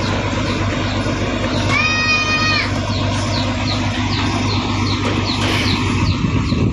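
A vehicle horn sounds one flat note for just under a second, about two seconds in, over the steady low running of an idling engine. After that, short high chirps repeat two or three times a second.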